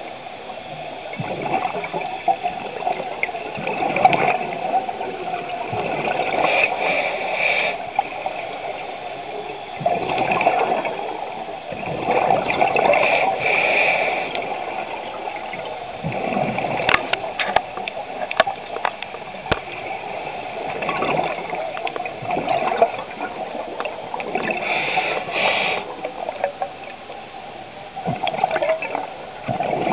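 Scuba diver's breathing through a regulator underwater: exhaled bubbles gurgle past in surges every few seconds. A few sharp clicks come about two-thirds of the way in.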